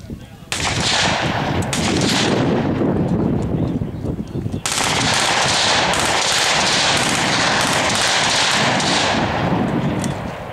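Sustained automatic machine-gun fire, starting suddenly about half a second in and turning heavier and denser about four and a half seconds in, then easing off near the end.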